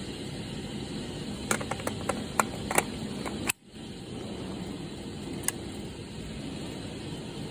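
A quick run of sharp clicks, about five in a second and a half, then a single click a couple of seconds later, over a steady background hiss.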